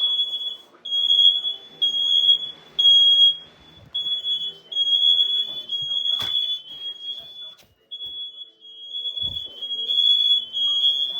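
Smoke alarm sounding: a shrill, steady high-pitched tone in pulses of about a second, broken by short gaps, with the loudness rising and falling. A single sharp knock about six seconds in.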